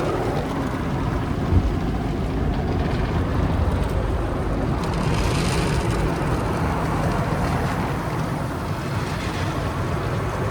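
Toyota Corolla running steadily: a low, even rumble with a single short thump about one and a half seconds in.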